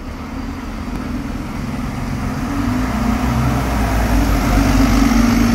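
Diesel double-decker bus pulling away from the stop, its engine rumble growing louder as it accelerates past, with a second double-decker bus approaching.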